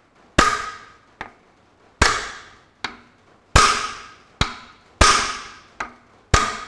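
Hammer blows on the top of a Ferguson tractor's front king pin and steering arm, driving the arm down hard onto the new king pin. Five heavy ringing strikes come about one and a half seconds apart, each followed by a lighter tap.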